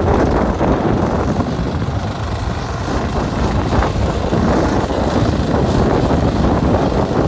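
Fishing boat's motor running steadily under wind noise on the microphone, with no break or change.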